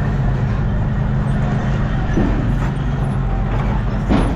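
A heavy diesel engine running steadily, with a short knock about two seconds in and another near the end.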